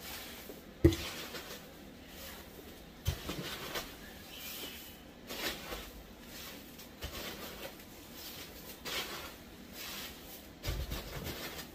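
Plastic bag rustling and packing peanuts rustling and spilling as they are dumped out of a cardboard shipping box, with a sharp knock about a second in and another about three seconds in.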